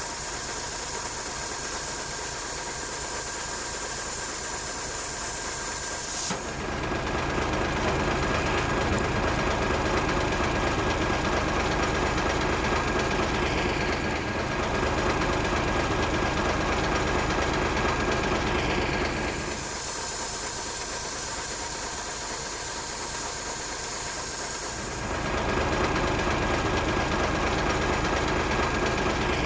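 Steady air hiss at a truck tyre's valve as a pressure gauge is held on it, giving way about six seconds in to a heavy truck engine running. The hiss returns around twenty seconds in, and the engine again near the end.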